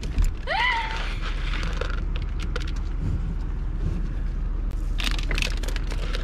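An animal's short call, rising in pitch and then levelling off, about half a second in, over a steady low rumble. A few clicks and rustles near the end.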